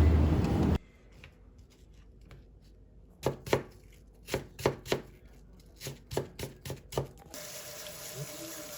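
Kitchen knife chopping on a cutting board: about a dozen sharp, uneven strikes in two runs. It follows a brief burst of loud street noise at the very start, and a steady faint hum comes in near the end.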